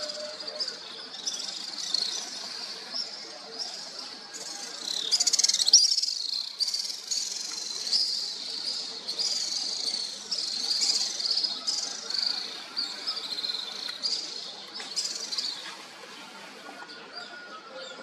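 Dawn chorus of small songbirds: many quick, high chirps and trills overlapping, busiest from about five seconds in and thinning out near the end, over a steady high insect drone.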